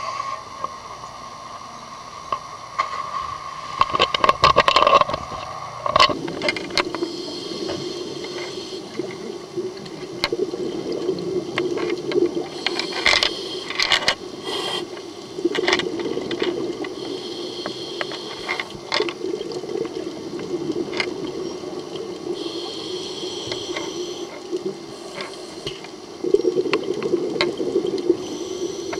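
Underwater through a camera housing: a scuba diver's exhaled breath bubbling out of the regulator in rushing bursts about every five seconds, over a steady low hum. Clicks and knocks in the first six seconds.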